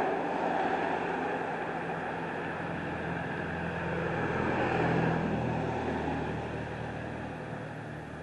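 A motor vehicle passing by, its engine hum and road noise swelling to a peak about halfway through and then fading away near the end.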